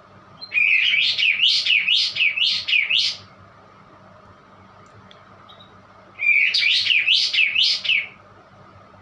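A kapas tembak bulbul singing two phrases of quick, repeated up-and-down notes, the first about half a second in and the second about six seconds in, each lasting two to three seconds. The song is an odd one for the bird.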